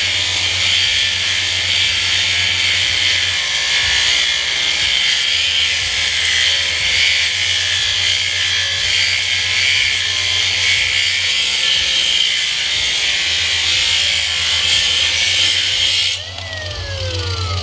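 High-speed electric power tool running steadily while working through a cast-aluminum motor mount. It is switched off near the end, its pitch falling as it spins down.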